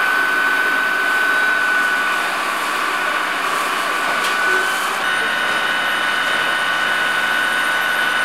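A fire engine's pump engine runs steadily with a high continuous whine. The tone changes slightly about five seconds in, when further high steady tones join it.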